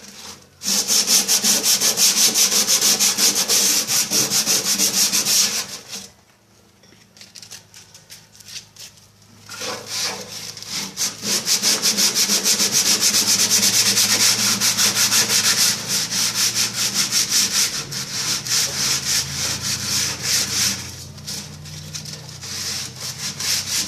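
Sandpaper scraping rust off the sheet metal inside a microwave oven, in fast back-and-forth strokes; it stops for about three seconds a quarter of the way in, then carries on.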